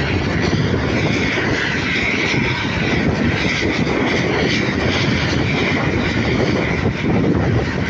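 Steady drone of a moving vehicle on the road: engine and road noise mixed with wind, holding an even level throughout.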